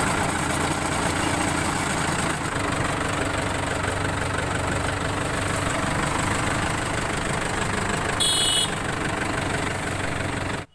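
Mahindra Yuvo 575 DI tractor's four-cylinder diesel engine idling steadily. A brief high-pitched tone sounds about eight seconds in.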